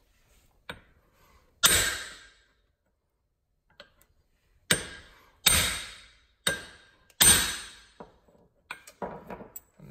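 Small sledgehammer striking a large impact socket to drive a Volvo Penta raw water pump assembly down until it is firmly seated: a light tap, then five hard metallic blows, each ringing briefly.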